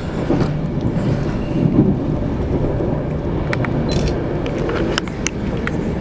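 Passenger train running along the track: a steady low rumble with a few sharp clicks in the second half.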